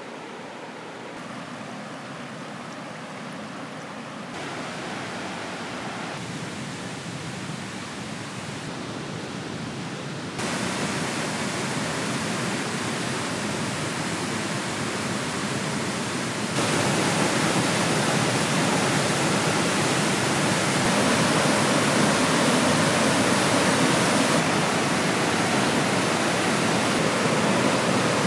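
Rushing whitewater of a waterfall and rapids, a steady noise that gets louder in three sudden steps, about 4, 10 and 17 seconds in, and is loudest over the last ten seconds.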